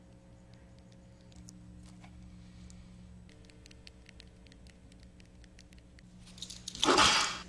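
Faint, irregular clicking of a mobile phone's keypad as a text is typed, over a low steady hum. About seven seconds in comes a short, loud burst of rushing noise.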